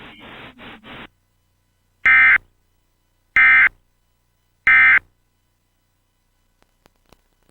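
Emergency Alert System end-of-message signal: three short, harsh digital data bursts (the EOM code), each under half a second and about 1.3 s apart. They mark the end of an emergency alert broadcast.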